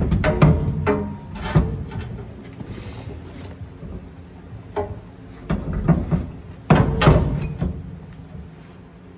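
Hand tools and metal drivetrain parts clanking, knocking and scraping under a pickup truck during a transfer case install. The knocks come irregularly, with a cluster of sharp ones near the start and another about two-thirds of the way through.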